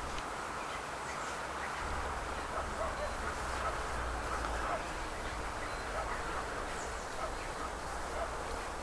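Outdoor ambience with a steady hiss, a low wind rumble that swells for a few seconds near the middle, and scattered faint distant bird calls.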